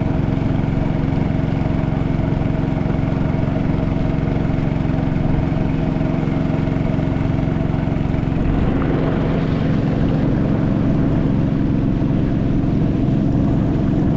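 Motorboat engine running steadily at an even speed as the river boat travels. A rushing hiss grows louder about nine seconds in.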